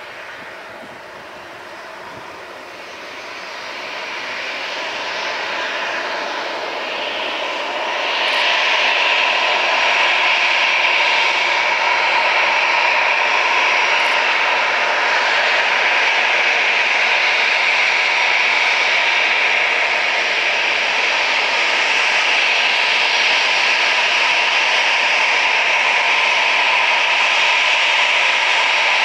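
Departing jet airliner's engines at takeoff power. They grow louder over the first eight seconds, then hold loud and steady.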